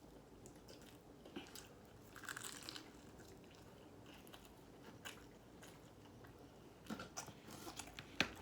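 Faint, intermittent crunching and chewing of crispy fried chicken being eaten, with a burst of crackles about two seconds in, more near the end, and one sharp click just before the end.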